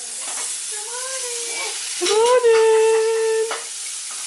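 Food sizzling in a hot frying pan, a steady hiss. About two seconds in, a pitched tone rises and then holds for about a second and a half over the frying; it is the loudest sound.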